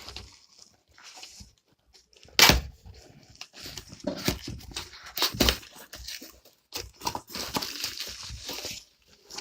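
Packaging being handled and torn open: crinkling and tearing of the parcel wrapping with a string of sharp knocks and clicks, the loudest knock about two and a half seconds in.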